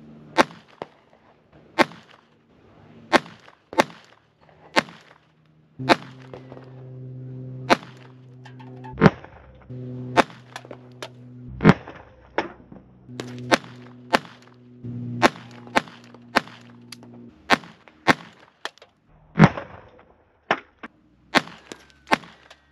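Beretta 21A .22 LR pistol firing single shots, about twenty sharp cracks at roughly one a second with uneven gaps. Through the middle stretch a layer of low steady tones sounds underneath.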